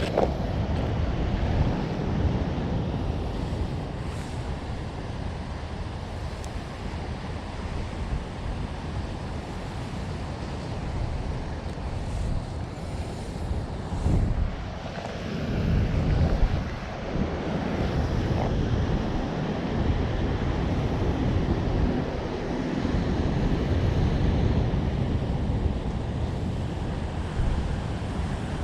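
Wind blowing over the microphone with ocean surf washing in, a steady low rumbling noise that swells briefly about halfway through.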